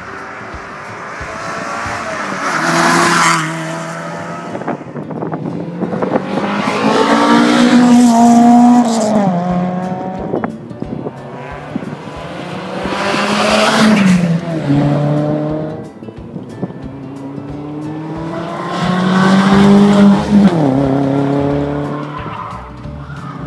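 A few rally cars accelerating hard one after another. Each engine climbs in pitch as it comes on, gets louder, then drops sharply in pitch as the car goes by.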